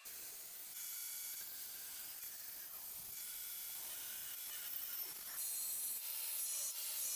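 Angle grinder with a thin cut-off disc cutting into square steel tubing: a steady high hiss with a faint whine over it, a little louder about five seconds in.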